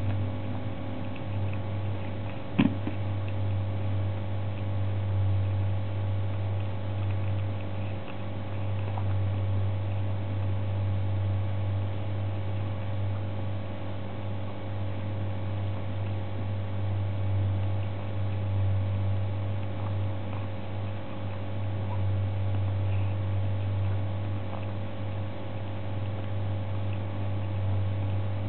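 Faint wet chewing and small clicks of a kitten eating salmon from a plastic plate, under a steady low electrical hum that is the loudest sound, with one sharp click about two and a half seconds in.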